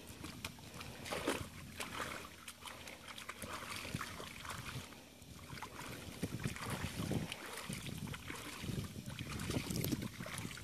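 Shallow muddy water sloshing and splashing irregularly as someone wades and gropes through it by hand.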